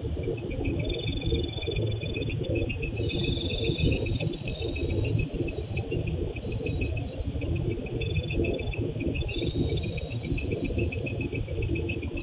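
Crickets chirping in rapid pulsed trills over a steady low rumbling noise, heard through a CCTV camera's microphone that cuts off the highest sounds.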